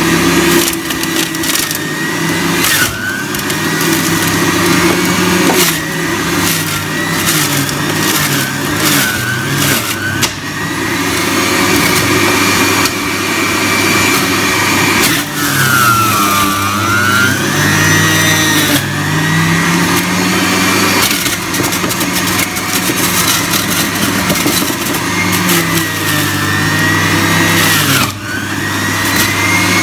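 Electric centrifugal juicer motor running, with clicks and rattles over the first ten seconds or so as produce is fed in and shredded. Its whine sags in pitch and climbs back about halfway through and again near the end as pieces are pressed down the chute with the pusher.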